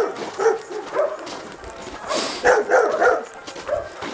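Dog barking repeatedly, a quick run of barks at the start and another after a short pause around the middle.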